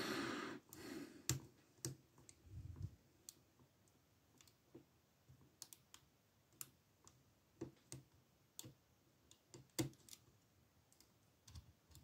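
Faint, irregular clicks of a lock pick working the pins inside a brass Lockwood 120/35 padlock, tensioned from the bottom of the keyway, with a brief rustle of handling near the start.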